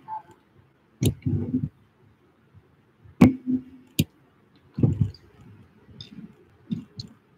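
Irregular sharp clicks and soft low knocks, five or six in all, with quiet between them.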